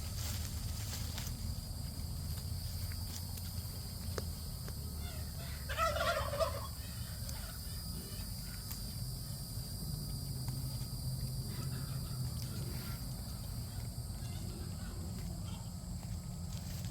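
A single short animal call about six seconds in, over a steady low rumble and thin, steady high-pitched tones like insects buzzing.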